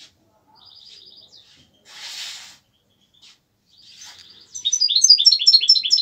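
A songbird singing: a short high trill about half a second in, then from about halfway a loud run of quick, repeated falling notes. A brief rustle comes about two seconds in.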